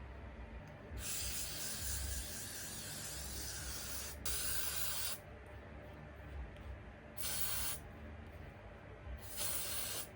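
A sprayer hissing in four bursts: one long spray of about three seconds, then three shorter ones spaced a couple of seconds apart.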